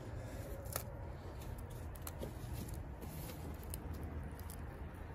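Newly lit bark tinder fire catching, crackling with irregular sharp pops, over a steady low rumble.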